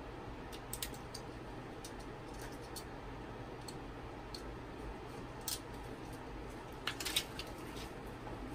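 Utility knife trimming excess FEP film around the edge of a resin vat frame: scattered light scratches and snicks of the blade on thin plastic film, with a small cluster of them about seven seconds in, over a steady low hum.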